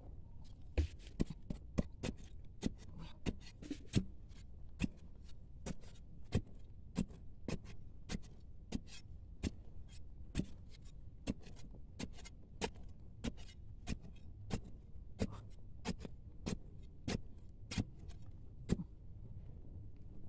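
Small metal spade digging into dry sandy soil, striking and scraping out earth in a steady rhythm of sharp strokes, about three every two seconds.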